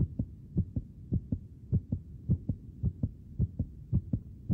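Heartbeat sound effect: low double thumps (lub-dub) repeating steadily at nearly two a second, used as a suspense cue.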